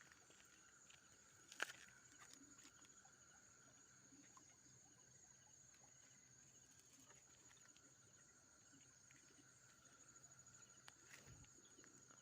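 Faint night insects, crickets among them, trilling steadily at two high pitches, with a sharp tap about a second and a half in and another near the end.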